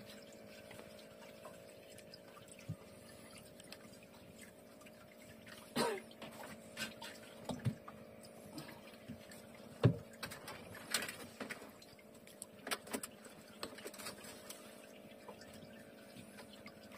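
Longline being hauled by hand into a small boat: scattered knocks and clicks of line and gear against the hull and basket, over a faint steady hum.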